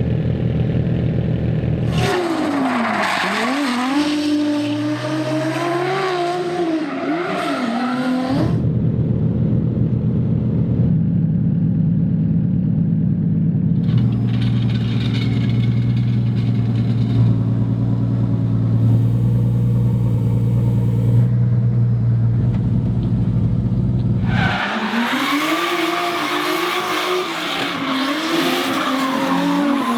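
Drift cars' engines revving hard with a wavering, bouncing pitch and tyres squealing, for several seconds after the start and again near the end. Between these bursts, a car engine runs at a lower, steady pitch.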